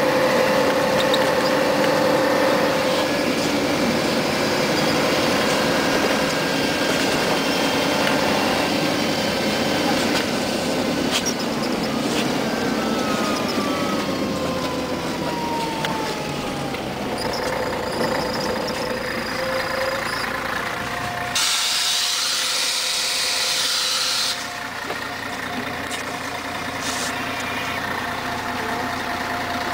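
Scania CN113CLL city bus's diesel engine running as the bus drives and slows to a stop. A loud hiss of compressed air lasts about three seconds, a little over two-thirds of the way in. Afterwards the engine is idling.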